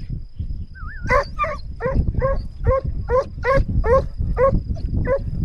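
Scent hound baying on a wild boar scent trail: a rhythmic run of short, yelping bays, about two or three a second, starting about a second in.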